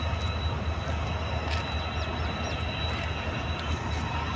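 Diesel locomotive engine running with a steady low rumble. Three short high chirps come about halfway through.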